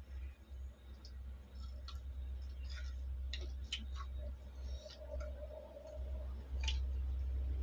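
Eating sounds: scattered mouth clicks and smacks from someone chewing a mouthful of dhido and saag, over a low rumble that gets louder about six and a half seconds in.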